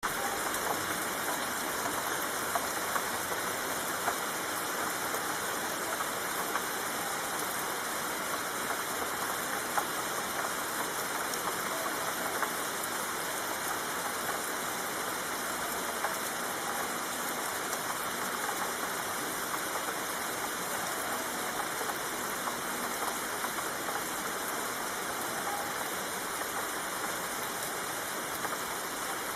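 Steady rainfall: an even hiss of rain, with a few sharper drop ticks standing out now and then.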